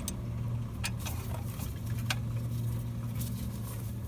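A few sharp metallic clicks and taps of hand tools on the brake caliper as it is bolted back in place, over a steady low hum.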